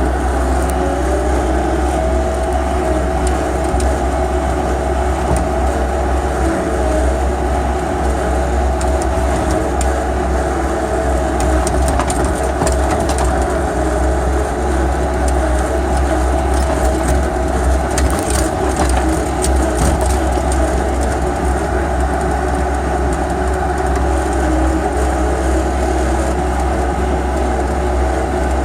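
Bobcat S185 skid steer's diesel engine running steadily at raised throttle with a deep, even drone, the machine working under its own power.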